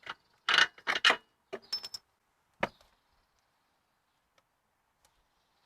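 A few sharp metallic clunks and clicks as the old rear strut of a 2002 Chrysler PT Cruiser is pulled off its mounting bolts and handled, one with a brief ring and the loudest knock coming a little over two and a half seconds in.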